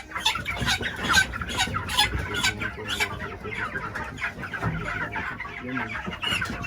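A flock of chickens clucking and calling, many short calls overlapping without a break.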